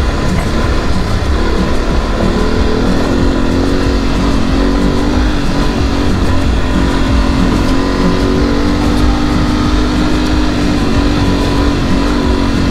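Adventure motorcycle engine running at a steady cruising pace on a gravel road, its note holding nearly level, under a heavy low rumble of wind on the camera's microphone.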